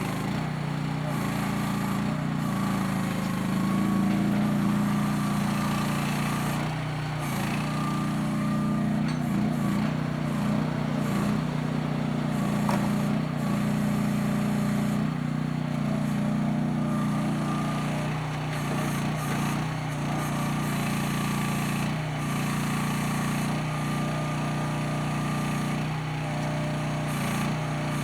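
Small engine of a CFG Industrial mini excavator running steadily. Its tone changes briefly several times, around a quarter of the way in and again in the last third.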